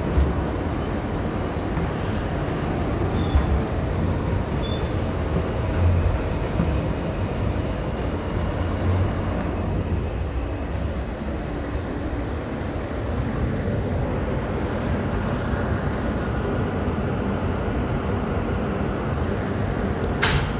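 R160A subway train running on the rails, a steady heavy rumble of wheels and car body, with a few short high wheel squeals in the first several seconds. A sharp click comes near the end.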